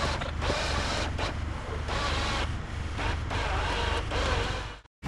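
Engine running at low revs with an even low throb, as a car creeps up the ramp of a tow truck's flatbed. It cuts off abruptly near the end.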